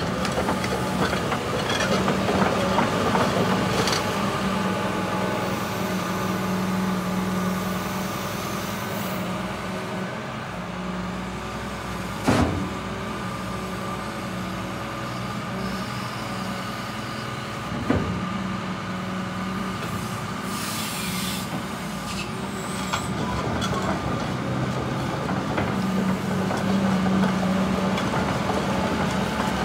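Cat 326F L tracked excavator's diesel engine running while the hydraulics move the boom, stick and tilting bucket. The engine note swells under load near the start and again near the end. Two sharp knocks come from the working gear, about twelve and eighteen seconds in.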